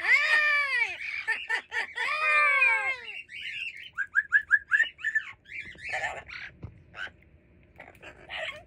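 Amazon parrot calling: two loud, rising-then-falling calls in the first three seconds, then a quick run of short chirps, then a few scattered softer notes.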